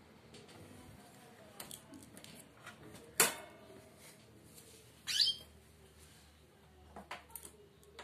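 A few light clicks and knocks, the loudest a sharp click about three seconds in, and one short chirp from a caged bird just past five seconds in that rises in pitch and ends on a brief whistled note.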